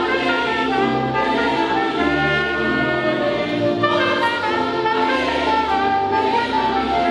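Trumpet playing a melody over Yamaha electronic keyboard accompaniment, an instrumental passage without the choir's singing.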